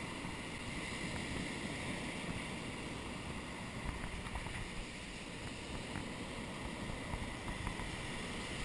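Steady wash of surf breaking on a beach, with wind on the microphone and a few faint ticks in the middle.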